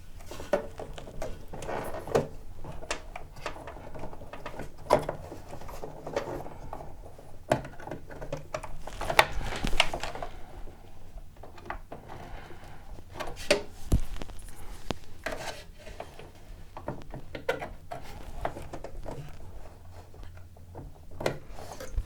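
Handling noise of an M.2 NVMe PCIe adapter card with a heatsink being worked into a desktop PC's PCIe slot: irregular clicks, knocks and rubbing of plastic and metal parts.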